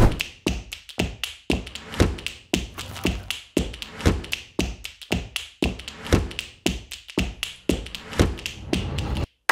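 A wooden spoon tapping and knocking against a ceramic bowl in a quick, irregular series of taps as diced tuna and avocado are added and mixed.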